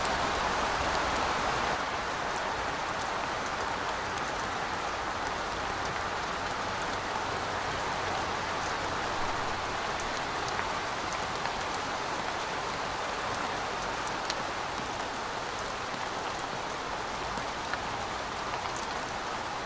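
Steady rain falling, an even hiss with scattered drops ticking, easing slightly about two seconds in.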